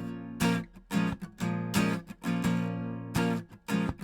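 Acoustic guitar strummed in a steady rhythm, chords struck about twice a second, as the instrumental backing of a song between sung lines.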